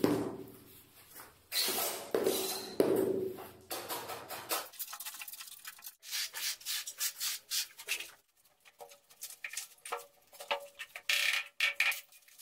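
A few dull knocks of a rubber mallet on a floor tile in the first few seconds, then runs of quick scraping strokes of a steel tiling trowel working tile adhesive along the edge of a laid tile.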